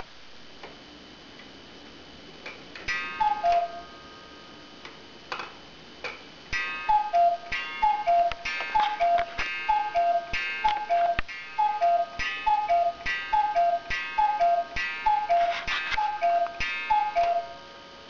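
Rombach und Haas Black Forest cuckoo clock calling the hour: its bellows-and-pipe cuckoo sounds a two-note falling call, once about three seconds in and then about a dozen times at roughly one a second, each call with a mechanical click and a ringing strike.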